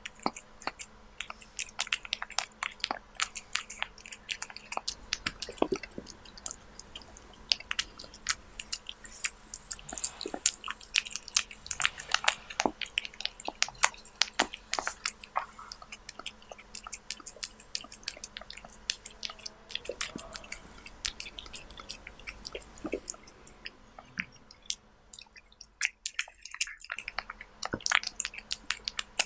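Kitten chewing raw beef: rapid, irregular wet chewing and smacking, with a brief pause near the end.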